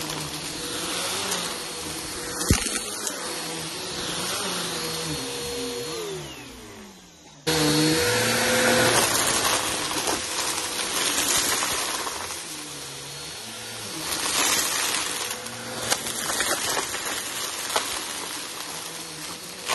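Vacuum cleaner running over a shag rug, with a steady motor whine and scattered crackles of crunchy debris being sucked up. About six seconds in the motor winds down and nearly stops, then it is suddenly back running at full speed.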